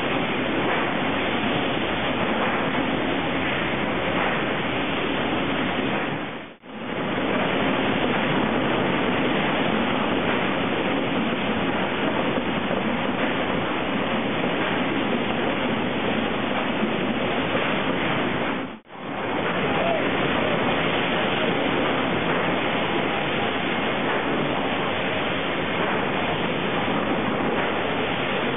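Steady, dense din of sawmill processing-line machinery: log conveyor and chipping heads running, with two brief dropouts almost to silence about six and a half seconds and nineteen seconds in.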